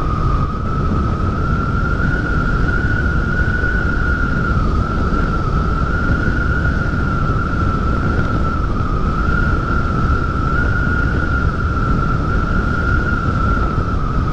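Riding noise on a Honda Click 125 scooter: heavy wind rumble on the microphone with one high, nearly steady whine that wavers slightly in pitch.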